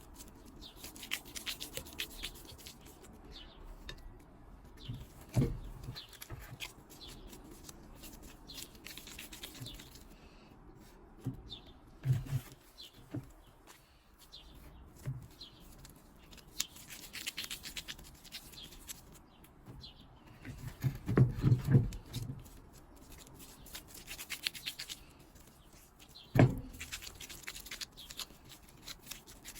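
Hands pinching off and rolling pieces of soft yeast dough into small balls on a flour-dusted tray: on-and-off dry rubbing and scraping, with a few dull knocks.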